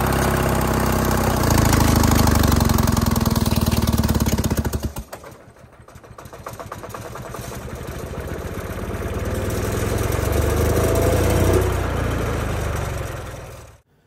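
Detroit Diesel 2-71 two-stroke diesel running hard, then almost stalling about five seconds in. It catches again running backwards, spun in reverse as the bulldozer rolled back with the clutch disengaged, and builds up speed with a rising whine before cutting off near the end.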